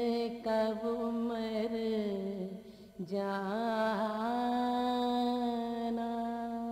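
A woman singing a noha, the Shia lament, in long drawn-out vowels with small turns of ornament. She breaks off briefly about two and a half seconds in, then holds one long, steady note.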